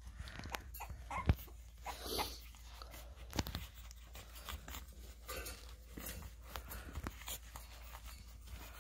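French bulldog puppies moving about and playing, making scattered small scuffles and clicks, with one sharp knock about a second and a half in.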